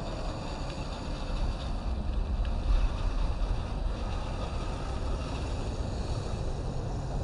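Steady low rumbling noise of wind buffeting the microphone, with no clear motor whine above it.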